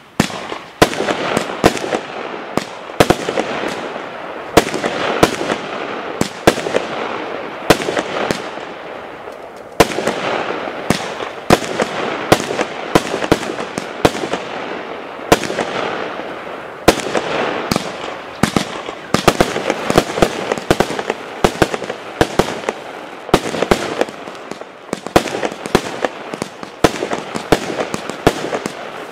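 Hallmark Darkside 79-shot firework barrage firing continuously: a rapid string of sharp bangs, about one to two a second, over a constant hiss.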